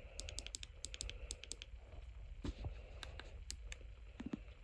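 Faint, irregular clicks, several a second, of typing on a computer keyboard, over a low steady hum.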